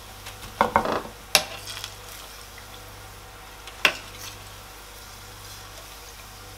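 Plantain pieces sizzling faintly in hot oil during their first fry, while a metal fork lifts them out and clinks against the stainless steel pot a few times: a cluster just before a second in, another about a second and a half in, and one near four seconds.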